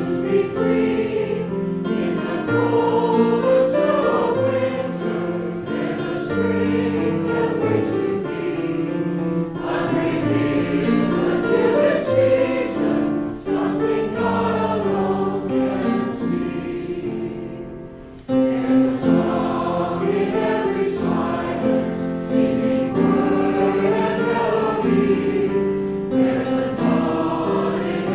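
Mixed church choir singing a slow hymn-anthem in English, with keyboard accompaniment. The sound briefly fades at the end of a phrase about two-thirds of the way through, then the full choir comes back in.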